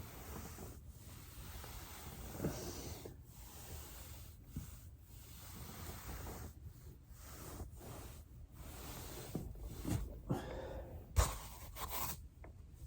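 Foam rolling: a body shifting on a foam roller gives an uneven rustling that comes and goes with heavy breathing. A single sharp crack sounds a little past eleven seconds in.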